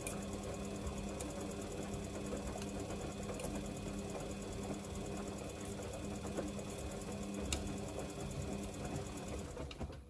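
Samsung front-loading washing machine in its wash phase, the drum turning wet dark laundry: a steady motor hum with the wash load churning and a few sharp clicks. It falls away suddenly at the very end as the drum stops between tumbles.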